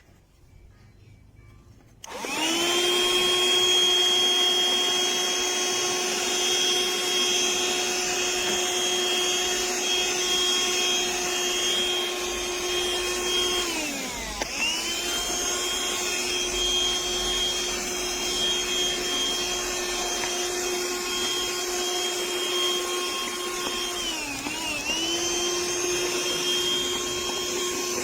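Cordless handheld vacuum (BLACK+DECKER Dustbuster 8V) switching on about two seconds in and running with a steady motor whine and rushing air. Its pitch sags and picks back up twice, once about halfway through and once near the end, as the motor slows and speeds up again.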